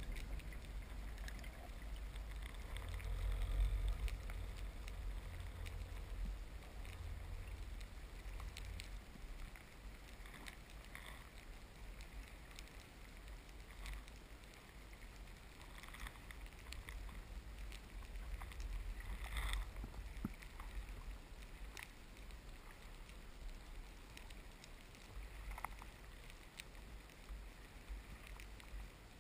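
Muffled underwater ambience through a camera's waterproof housing: a low rumble, louder in the first several seconds, with faint clicks and crackles now and then.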